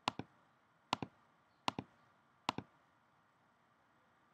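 Faint clicks from working a computer: four quick double clicks, a little under a second apart, then quiet room tone.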